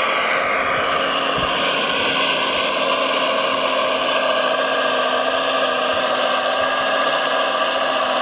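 Electric motors and gears of a radio-controlled model construction machine whining steadily, with the pitch dipping slightly about a second in.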